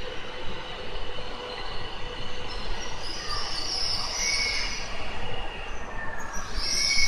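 Tohoku Shinkansen train running on the rails with a steady high whine. A brighter high-pitched squeal comes in about four seconds in and returns louder near the end.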